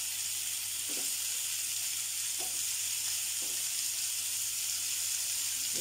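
Mince meatballs sizzling steadily as they fry in oil in a pan.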